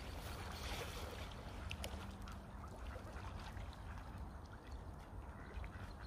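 Mallard ducks on the water giving occasional short quacks over a steady low rumble.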